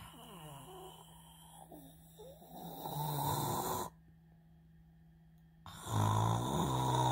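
A small long-haired dog snoring in its sleep: two long snores, the first growing louder until it stops about four seconds in, the second starting near the end.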